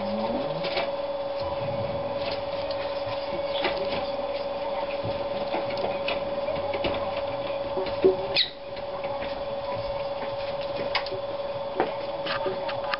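Steady hum of a small motor or appliance with one constant mid pitch, with faint scratches and rustles from two prairie dogs wrestling on a carpet and a sharper knock about eight seconds in.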